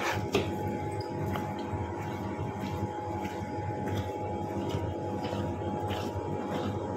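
Kitchen knife slicing through a tomato and tapping the plastic cutting board, short clicks about twice a second, the sharpest just after the start. A steady machine hum runs underneath.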